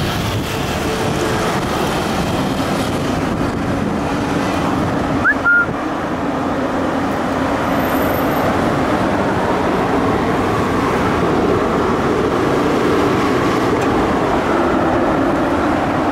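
Steady stream of cars driving across a road bridge's metal-deck lift span, an even rush of tyre noise with a low hum under it.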